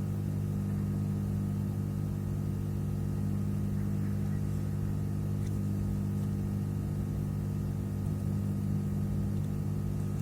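Steady low hum with several even pitched layers, unchanging throughout, with a few faint ticks.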